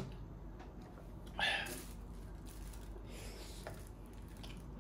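Faint eating sounds: one brief louder noise about a second and a half in, a softer one a little later, and a few light clicks.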